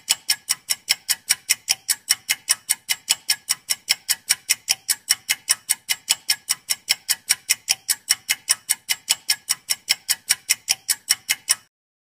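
Countdown-timer clock-ticking sound effect: a steady run of sharp, high ticks, about four a second, that stops suddenly near the end.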